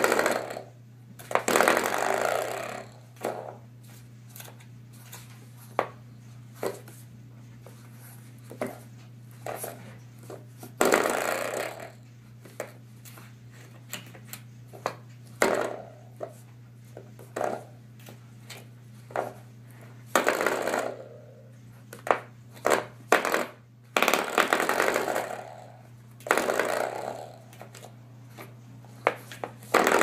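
Spring door stopper twanging again and again as a puppy swats and bites it. There are about half a dozen long, fading twangs and many short clicks and taps between them.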